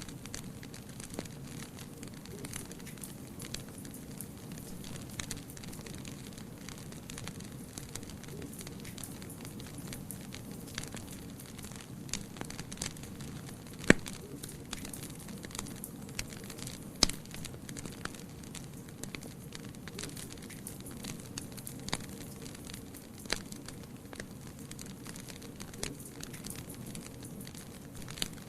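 Wood fire burning in a fireplace: a steady low rumble and hiss with scattered crackles, and two sharp pops, about 14 and 17 seconds in.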